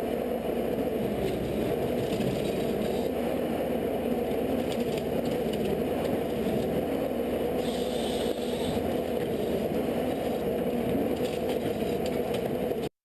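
Heavy machinery running steadily, with a rattling, scraping clatter over a constant engine drone.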